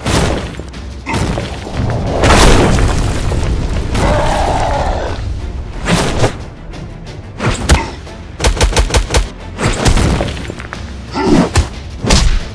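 Heavy impact sound effects, booms and thuds, over background music. The hits come irregularly, with a quick run of about six blows a little past the middle.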